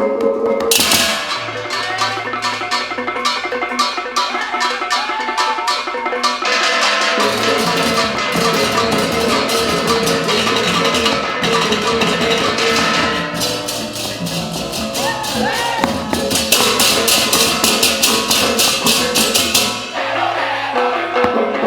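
Balinese gamelan music: ringing metallophones and drums play fast, even strokes over sustained tones. The texture shifts several times, thinning and thickening about a third of the way in, just past halfway, and near the end.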